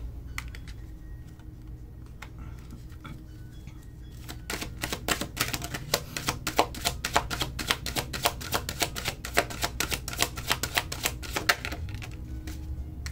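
Oracle card deck being shuffled by hand: fairly quiet at first, then from about four seconds in a fast run of card snaps and flicks for several seconds.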